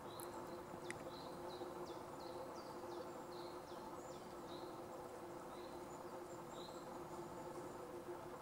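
A small bird calling: a series of short, high notes, each sliding down, about three a second, slowing and thinning out toward the end, over a steady low hum.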